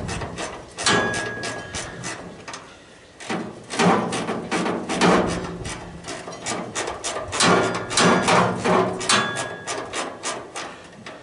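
Sheet-metal housing panels clanking and rattling as they are worked loose by hand, in several bouts of clatter with a short metallic ring now and then.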